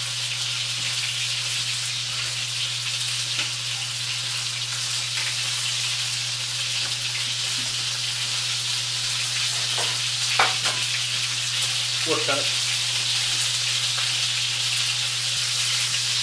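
Breaded chicken pieces pan-frying in hot oil: a steady sizzle. Under it runs a steady low hum, and a few brief knocks sound about ten seconds in.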